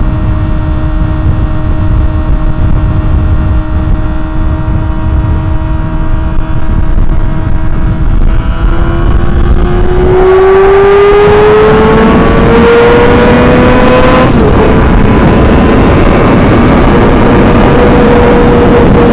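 Sport motorcycle engine running at a steady pitch at highway speed, then from about eight seconds in accelerating hard, its exhaust note rising steadily in pitch to high rpm, with a short break about fourteen seconds in before it holds high. Heavy wind rush on the helmet-mounted microphone underlies it.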